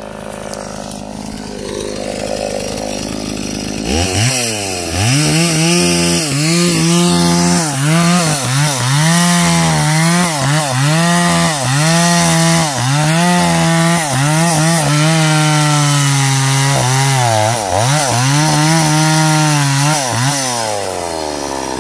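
Two-stroke Stihl chainsaw idling, then revved up about four seconds in and held at full throttle while crosscutting a teak log. The engine note sags briefly about once a second as the chain bites into the wood, and it falls back to idle near the end.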